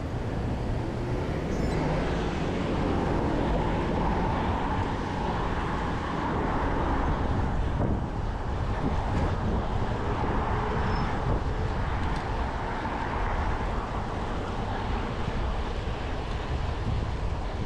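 Wind rushing steadily over the microphone of a cyclist riding along a road, with a low rumble of road and traffic noise underneath.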